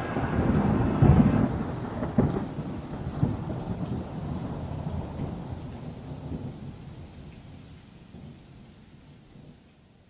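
Thunderstorm: steady rain with several claps of thunder in the first three seconds, the whole slowly fading out to nothing.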